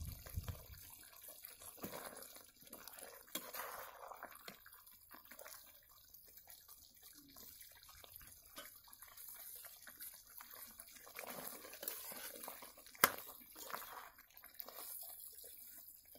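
Ladle scooping and pouring thin chicken curry gravy, with faint irregular splashing and dripping and small metal clicks. One sharp knock of metal late on.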